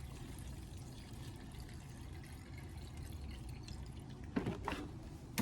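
Pre-mixed two-stroke fuel being poured into the string trimmer's fuel tank, a faint steady trickle, with a couple of short knocks near the end.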